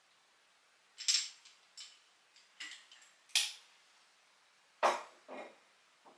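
A small glass bottle and a ceramic ramekin being handled on a wooden table, giving a series of short, light clinks and knocks. The loudest come about a second in, at about three and a half seconds and near five seconds.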